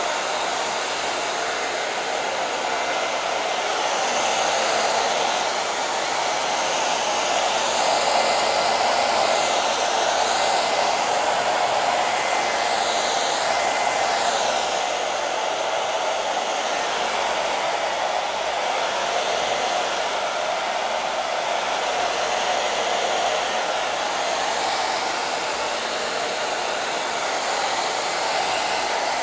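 Handheld hair dryer blowing steadily to dry fresh paint on a canvas; its hiss wavers in tone as it is swept back and forth over the surface, and it switches off at the very end.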